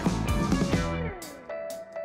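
Background music with a steady beat. About a second in, the beat and bass drop out and a note slides down, leaving one held note.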